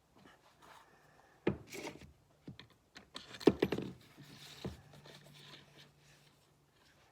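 Metal clicks, clatter and scraping as a drill bit is handled in the Drill Doctor bit sharpener's chuck. The loudest knocks come about a second and a half in and again around three and a half seconds in.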